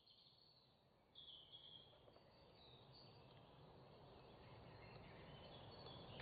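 Faint high-pitched bird chirps over quiet outdoor background noise, the chirps starting about a second in.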